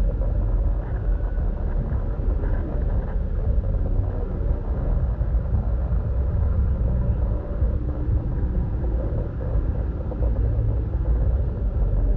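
Steady low rumble of indistinct crowd noise in a large, busy exhibition hall.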